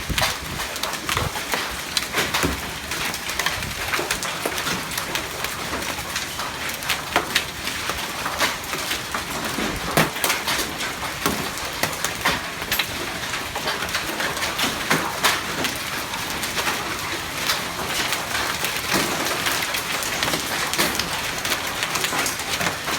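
Hail falling and striking hard surfaces: a dense, continuous patter of small impacts with many sharper clicks scattered through it.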